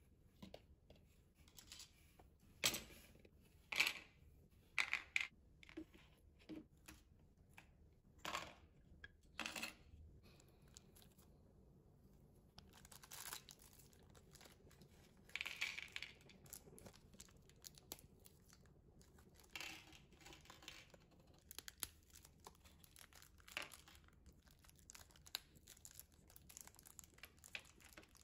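Small clear plastic bags of kit parts being torn open and crinkled by hand, with scattered light clicks of small plastic parts and screws set down on a table.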